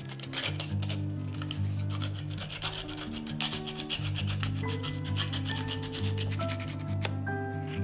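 Coarse sandpaper rasping back and forth across the tines of a wooden fork in quick, short strokes, reshaping the wood. The strokes stop about a second before the end. Soft background music plays underneath.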